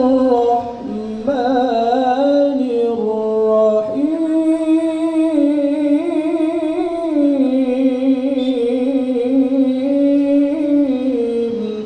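A man reciting the Quran in the melodic tilawah style, opening his recitation right after the basmala. He sings long held notes with wavering ornaments in a few long phrases, the last one dying away near the end.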